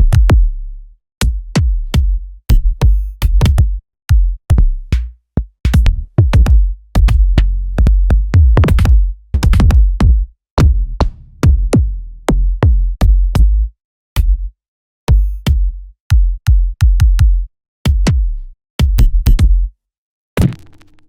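Programmed electronic drum beat from a drum sampler: deep, booming sub-bass kicks with long tails and sharp, clicky percussion hits, in a stop-start pattern with short silent breaks.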